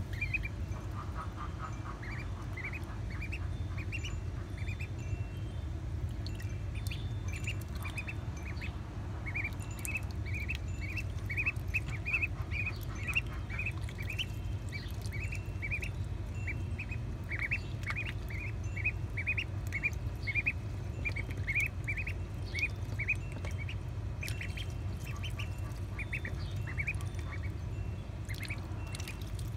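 Two-week-old magpie ducklings peeping continually in short high calls, two or three a second, as they paddle and feed in shallow water, with small splashes and pecking clicks over a steady low hum.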